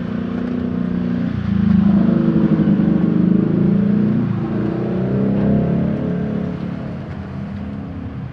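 A motor vehicle engine running with its pitch rising and falling as it revs. It grows louder about a second and a half in and fades over the last few seconds.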